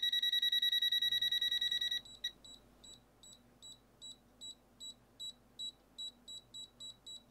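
Non-contact voltage (NCV) alarm of a TESMEN TM-510 multimeter beeping loudly in a rapid, continuous pulse, sensing the AC voltage in a mains cable, stopping abruptly about two seconds in. Then a Brymen BM235 multimeter's NCV beeper gives quieter short high beeps about three a second, quickening slightly.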